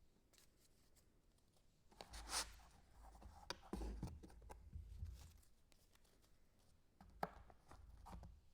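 Faint handling noises in a small room: scattered light clicks and short scratchy rustles, a few grouped about two seconds in, again around four seconds, and a sharp click near the end.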